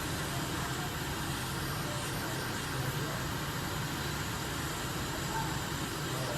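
Hot air rework station blowing a steady hiss of hot air onto an iPhone 7's A10 CPU to melt the solder and lift the chip off the board.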